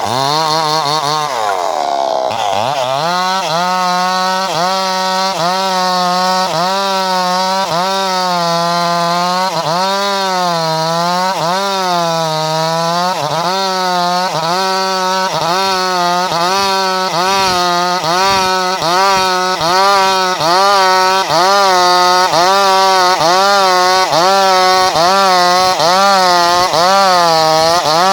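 Chainsaw cutting through a log of kayu afrika wood, its engine running hard. The pitch dips and recovers about once a second as the load changes, with a deeper drop in revs about two seconds in.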